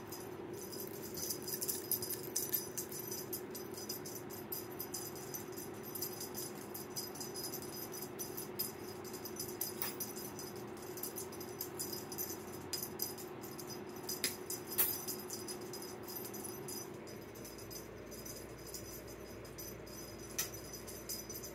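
Cat wand toy being shaken, a small bell on it jingling and rattling in quick, uneven shakes, over a steady low hum.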